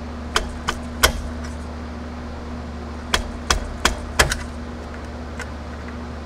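Screwdriver clicking against the metal of a C6 Corvette's parking-brake adjuster wheel as it is worked to make the wheel turn. The wheel is stiff with caked brake dust. There are three sharp clicks about a third of a second apart near the start, then four more at the same pace around three to four seconds in.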